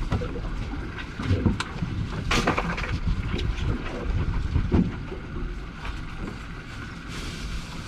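Fishing boat under way at low speed: a steady low rumble of wind on the microphone and water against the hull, with a few brief knocks and a sharper clatter about two and a half seconds in.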